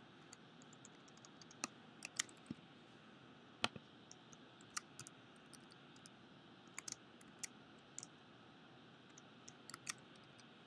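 Computer keyboard keystrokes, sparse and irregular, as names are typed one key at a time, over a faint steady hiss.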